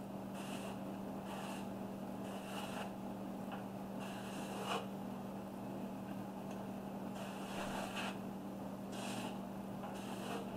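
Airbrush spraying paint in short hissing bursts, started and stopped over and over as fine detail is laid onto a tumbler, over a steady low hum.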